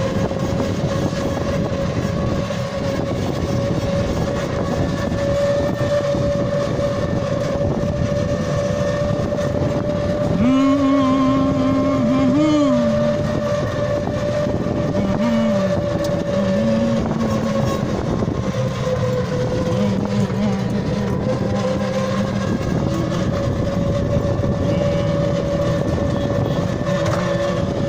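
Ride inside a moving three-wheeled city safari rickshaw: steady running and road noise with a constant whine. From about ten seconds in, a wavering pitched tone sounds several times over the traffic noise.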